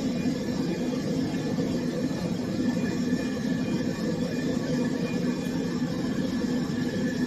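Pet grooming dryer running steadily: an even rush of blown air with a constant hum.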